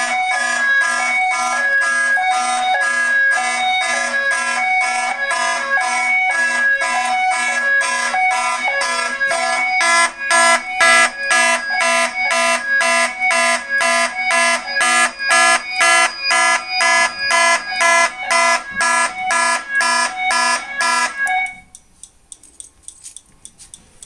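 Fire alarm horns sound in alarm together with a Wheelock E70 speaker-strobe playing an alternating hi-lo tone, giving a loud mix of buzzing horn pulses and two alternating pitches. All of it cuts off about 21 seconds in.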